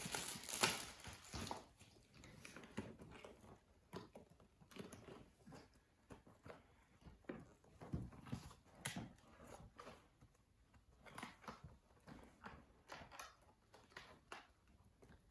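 Cardboard gift box and packaging being handled and opened: scattered light taps, scrapes and rustles, a little louder in the first second or so.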